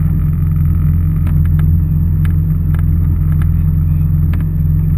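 Personal watercraft engine idling: a steady low hum with a few light ticks scattered through it.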